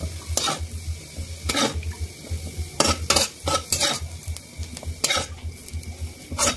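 A metal spatula scraping and clinking irregularly against an aluminium kadai and a metal plate as fried potato and carrot cubes are scooped out, over a light sizzle of hot oil left in the pan.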